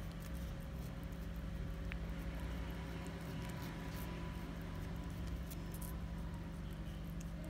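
A cat licking paste from a squeeze-tube cat treat: faint, irregular clicks of tongue and mouth over a steady low hum.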